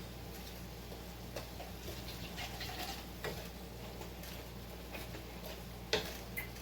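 Ground turkey with onions and peppers sizzling faintly in a frying pan, with a few light clicks, over a steady low hum.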